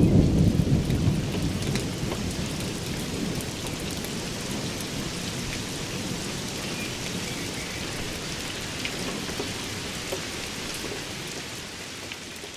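Thunder rumbling and dying away over the first couple of seconds, then steady rain falling with scattered drop ticks, easing off near the end.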